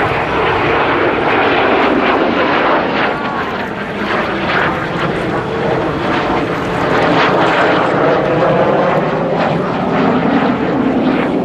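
Kawasaki T-4 jet trainer of the Blue Impulse team flying overhead, its twin turbofan engines making a loud, continuous jet noise that swells gently in loudness.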